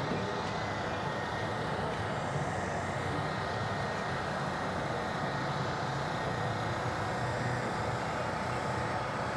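Steady engine drone with a few faint steady tones, even throughout with no distinct events.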